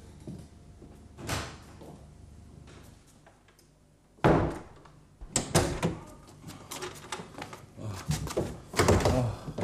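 A door shutting with a bang about four seconds in, followed by a run of knocks and clatter.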